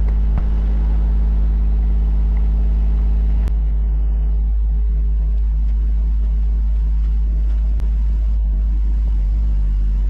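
Exhaust of a 2007 Ford Freestar's V6 running steadily at a held fast idle of about 2000 RPM, heard at the tailpipe, while Sea Foam top engine cleaner is drawn in through the throttle body to clear carbon deposits. There are brief clicks about three and a half and eight seconds in.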